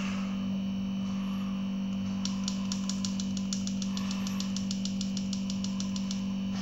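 Rapid, even clicking from a vape mod being adjusted in the hands, about eight small clicks a second for some four seconds. A steady low electrical hum runs underneath.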